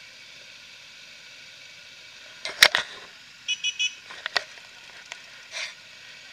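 A cluster of sharp knocks and clicks, then three quick electronic beeps, each with two tones at once, followed by a few lighter clicks, over a steady hiss. No engine sound comes through.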